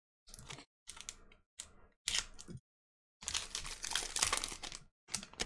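Foil wrapper of a Topps Gypsy Queen baseball card pack being torn open and crinkled by hand. Several short rips and rustles come first, then a longer, louder crinkle about three seconds in.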